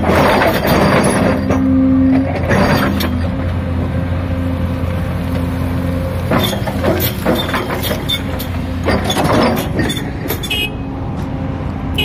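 Hyundai excavator's diesel engine running steadily under load while its toothed rotary trencher attachment grinds into rock near the start, followed by scattered knocks and scraping.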